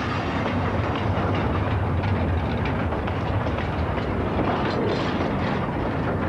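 Freight train wagons rolling past close by: a steady rumble of wheels on the rails with some clattering.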